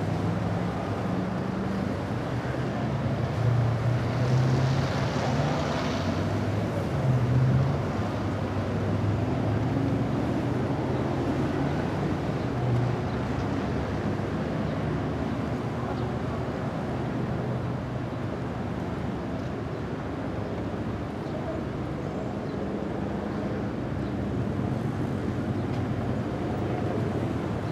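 A motorcade of vans, a minibus and black SUVs driving past one after another, a continuous rumble of engines and tyres on the road. It swells as vehicles pass close, about four seconds in and again near eight seconds.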